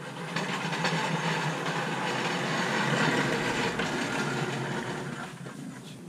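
A vehicle going past: a rush of road noise that swells, peaks about halfway through and fades away.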